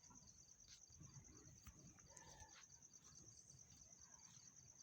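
Near silence, with a faint, steady, high-pitched chirping that pulses rapidly.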